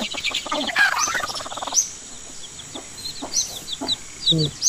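Baby chicks peeping: short, high-pitched peeps that come thick and fast in the second half, with one lower-pitched cluck near the end.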